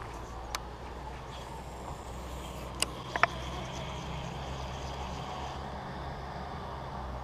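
Steady low hum of a distant motor running, with a few sharp clicks from handling a baitcasting rod and reel: one about half a second in and two close together around three seconds in.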